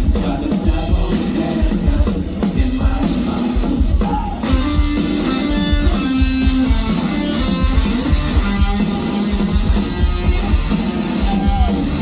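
Rock band playing live, with electric guitar over drums and bass; the guitar part stands out more clearly about halfway through.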